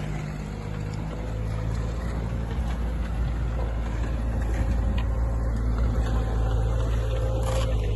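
A vehicle engine running steadily with a low hum, growing a little louder over the first few seconds.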